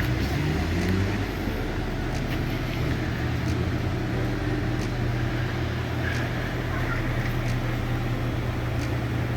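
Steady low rumble of road traffic on a street, with a few faint clicks.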